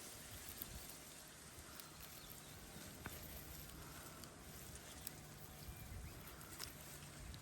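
Faint outdoor wetland ambience, a steady low hiss with a few scattered small ticks.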